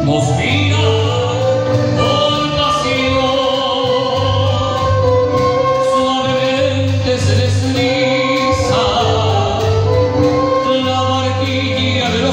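Live band playing with singing: acoustic guitar, flute, violin and electric bass, the bass holding a low line that comes and goes every couple of seconds under sustained melody notes.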